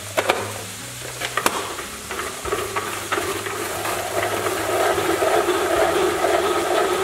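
Hand-operated pull-cord salsa maker chopping onion, tomato and jalapeño: a few sharp clicks, then, from about two and a half seconds in, a steady ratcheting whir that pulses with each pull of the cord as the blades spin in the bowl.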